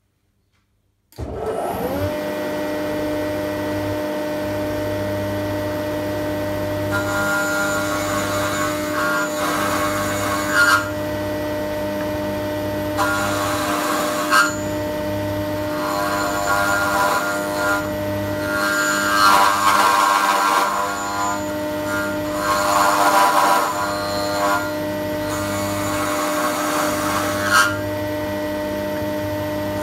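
Horizontal slot mortiser starting up about a second in and running with a steady hum. From about seven seconds on, its spinning bit cuts a mortise into a wooden beam, with repeated louder stretches of cutting as the wood is fed into the bit and moved back and forth.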